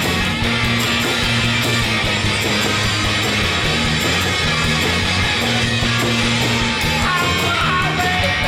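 Background rock music with distorted electric guitar and a steady beat.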